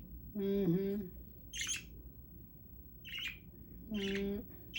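Pet budgerigars giving a few short, high chirps, about a second or so apart.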